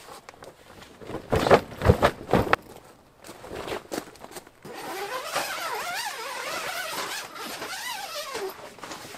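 A few loud knocks early on, then a small motor running with a whine that wavers rapidly up and down in pitch.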